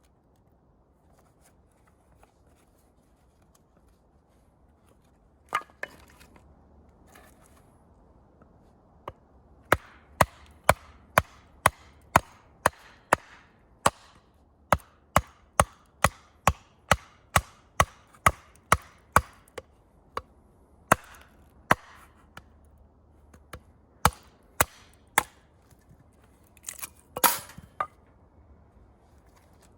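Sharp wooden chops, a blade striking wood. A few isolated knocks come first, then a steady run of about two chops a second for some ten seconds, then slower, scattered chops.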